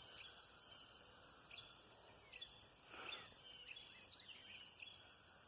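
Faint dawn birdsong: scattered short chirps and calls from several wild birds, over a steady high-pitched background hiss.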